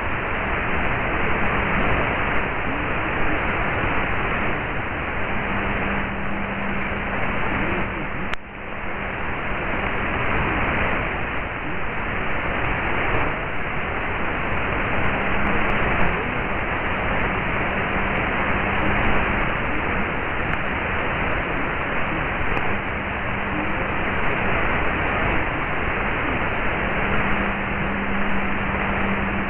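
Shortwave AM broadcast on 11925 kHz received very weakly on a software-defined radio in synchronous AM mode: mostly steady static hiss, with a faint low hum that comes and goes. The loudness dips briefly about eight seconds in.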